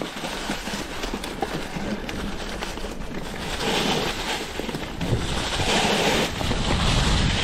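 Dry leaf litter and brush crunching and rustling under a moving mountain bike, in irregular swells, with wind rumble on the microphone that grows stronger near the end.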